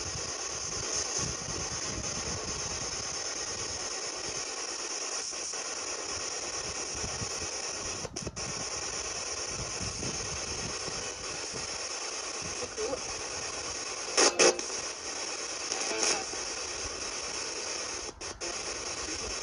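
Radio static from a ghost-hunting spirit box sweeping through stations: a steady hiss, broken by two brief louder snatches of sound about three-quarters of the way through.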